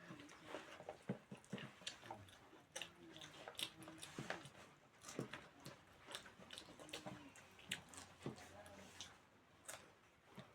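Faint chewing and eating sounds: scattered small clicks and mouth smacks as people chew their food.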